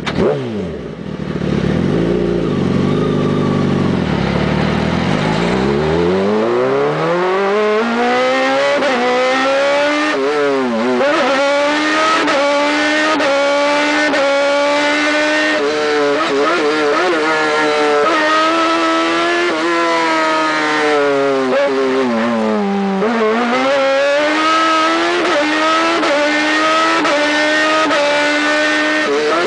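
A vehicle engine revs up from low over the first several seconds, then runs hard at high revs, its pitch rising and falling continually. The revs drop sharply and climb again about ten seconds in, and dip again around three-quarters of the way through.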